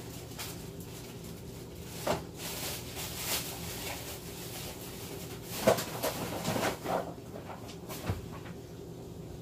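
Kitchen handling noises at a counter: a sharp knock about two seconds in, a run of clattering knocks in the middle, and a low thump near the end, over a steady low hum.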